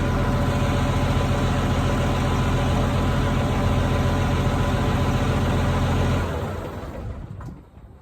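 Case 2294 tractor's diesel engine idling steadily, then shut off about six seconds in and running down to a stop.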